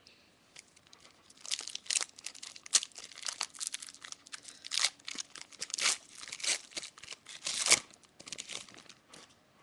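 Trading card pack's foil wrapper being torn open and crinkled by hand, an irregular run of sharp crackles starting about a second and a half in and stopping near the end.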